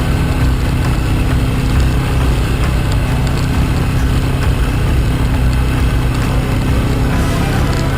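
Vehicle engine running steadily at an even, unchanging speed.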